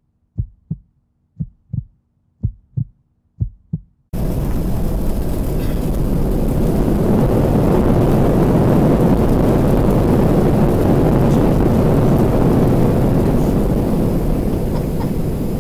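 A heartbeat sound effect, low double thumps about once a second. About four seconds in it cuts suddenly to loud, steady jet airliner cabin noise as the plane lands; the rush swells and then eases a little near the end.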